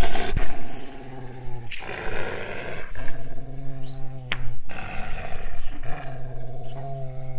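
Gaddi dog (Himalayan sheepdog) growling continuously in an aggressive mood, in strokes of one to two seconds broken by brief pauses for breath.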